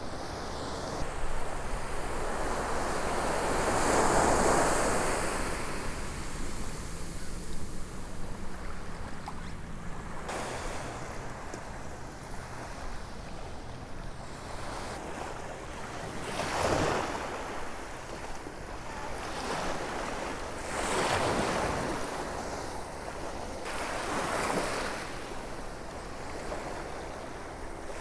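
Small surf breaking and washing up the beach, swelling and fading every few seconds, with wind on the microphone.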